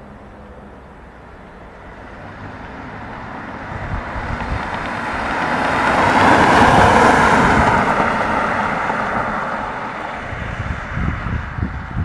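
BMW E39 525d's 2.5-litre straight-six turbodiesel driving past: the engine and tyre noise grows over the first few seconds, is loudest about six to seven seconds in as the car passes, then fades as it drives away. Wind buffets the microphone near the end.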